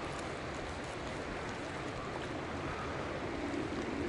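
Steady rushing of a fast-flowing river current.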